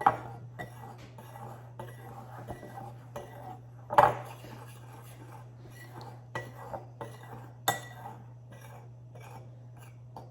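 Kitchen utensil clinking and scraping against a mixing bowl while dry ingredients are stirred, in scattered light knocks with a sharper clink at the start, another about four seconds in, and one more near eight seconds.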